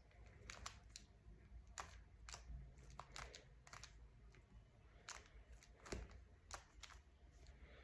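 Rubik's Cube being turned by hand: faint, irregular plastic clicks as its layers rotate.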